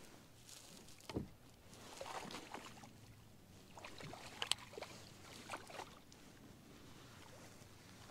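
Faint small water splashes, clicks and knocks as a hooked kokanee is brought alongside a fishing kayak and netted, with one sharper click about four and a half seconds in.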